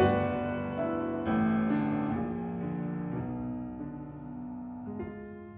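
Background piano music: slow notes that ring and fade, growing quieter toward the end before a few new notes near the close.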